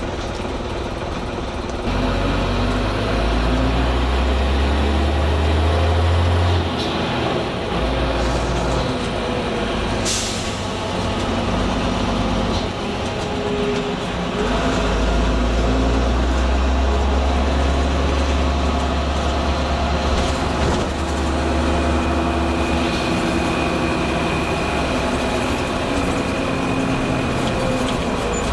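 Leyland Olympian double-decker bus under way, its diesel engine pulling hard in two spells and easing off between them. A short, sharp hiss of air about ten seconds in and fainter ones later are the 'sneezing' of its air-operated gear changes.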